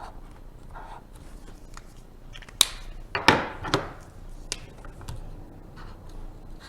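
Colouring strokes scratching on a paper plate, with a quick run of sharp clicks and knocks near the middle from the drawing tools being handled.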